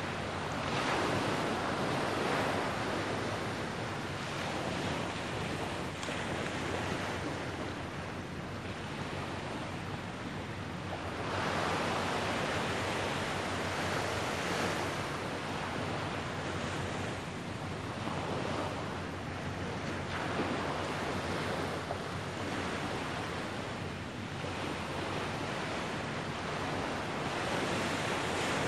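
Small waves washing onto a sandy beach, the wash swelling and fading every couple of seconds, with wind on the microphone.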